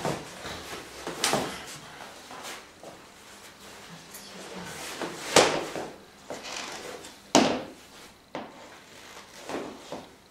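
Hands sliding and pressing over clothing on a person's back: a series of short swishing rubs at irregular intervals, the loudest about five and seven seconds in.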